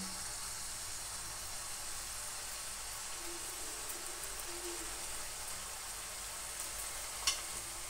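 Minced-beef kebabs frying in oil in a karahi over a low flame: a steady, quiet sizzle, with a single light tap near the end.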